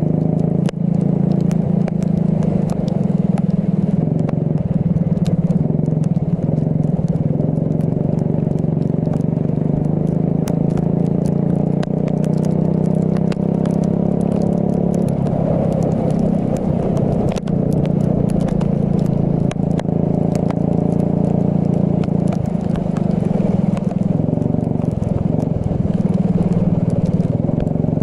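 Racing kart engine running hard on a wet track, its pitch shifting as the throttle opens and closes, with many sharp ticks and crackles throughout.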